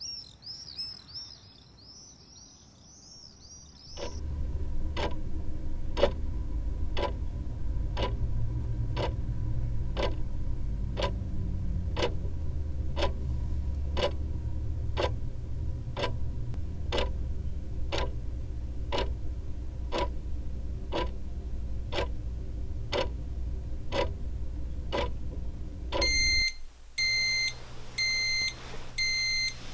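Birdsong fades out over the first few seconds. Then a clock ticks once a second over a low hum. Near the end an electronic alarm clock beeps four times, about a second apart.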